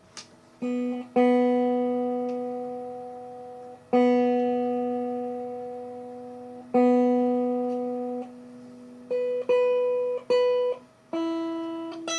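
Telecaster-style electric guitar built from a kit: single notes plucked one at a time and left to ring out, several long, fading notes at the same pitch, then a few shorter, quicker notes higher up. The strings are being checked while the intonation is set.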